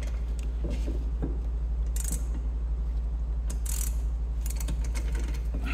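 Ratchet with a hex bit socket clicking in short, irregular runs as it works the Allen-headed bolts behind a rear brake caliper carrier, over a steady low hum.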